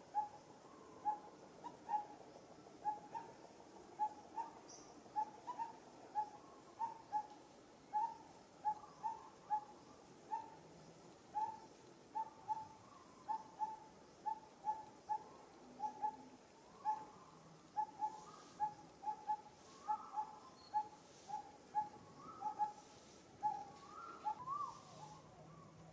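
A bird calling one short, clear note over and over at a steady pace of about two notes a second, with a few other bird calls joining near the end.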